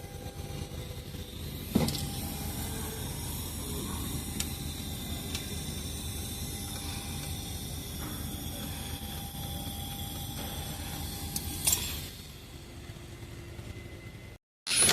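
Steady low workshop background noise with two sharp knocks, about two seconds in and again near the end, and a few faint ticks between them.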